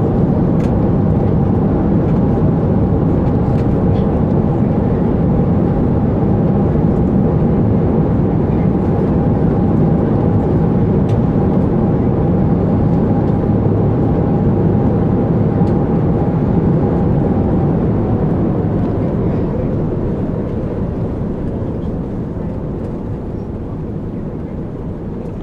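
Airbus A380 cabin noise during landing: a loud, steady rumble of the engines and airframe with a steady whine on top. The whine fades out about two-thirds of the way through, and the whole sound eases off toward the end.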